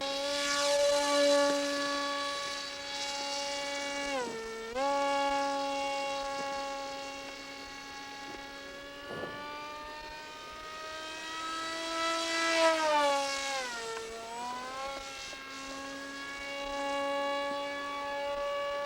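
Wild Hawk remote-control model plane's motor running with a steady whine. Its pitch dips briefly about four seconds in, then swells and dips again around fourteen seconds.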